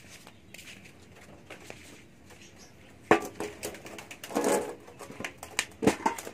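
Handling noises while the pigeon is dosed: quiet at first, then a sharp knock about three seconds in, followed by scuffling and rustling, and another knock near the end.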